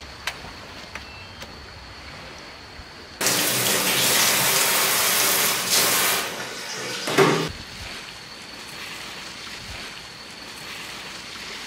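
Tap water running hard into a stainless steel sink for about three seconds, starting about three seconds in, as seafood is rinsed under it, followed by a second short splash of water about seven seconds in.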